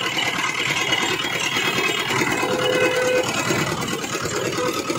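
Small engine driving a belt-driven sugarcane juice crusher, running steadily with a rapid, even chugging.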